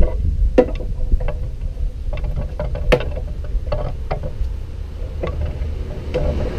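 Scattered light knocks and clicks as metal epoxy resin and hardener cans are handled and set down on an OSB workbench, about eight in all with the sharpest about three seconds in, over a steady low rumble.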